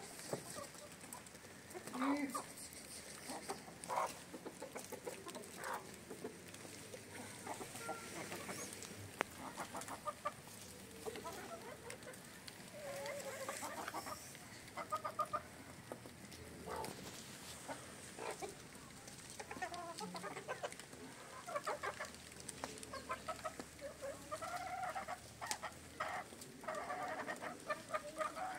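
A flock of domestic chickens, hens with a rooster, clucking in short, scattered calls while pecking at scattered feed.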